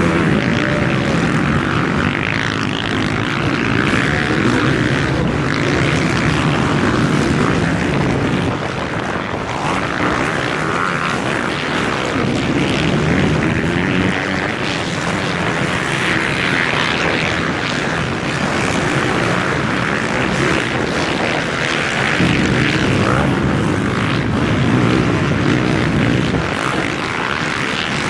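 Several off-road motorcycle engines revving as they race across sand, a continuous buzz that swells and eases as the bikes pass.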